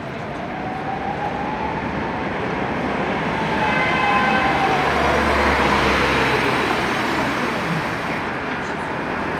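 Tatra T6A5 tram pulling in to a stop: wheels rumbling on the rails, with a whine from its electric drive that rises then falls in pitch as it slows. It is loudest about halfway through as it comes close, over steady street noise.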